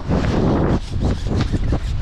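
Strong gusty wind buffeting the microphone, with a loud gust from just after the start to about three quarters of a second in.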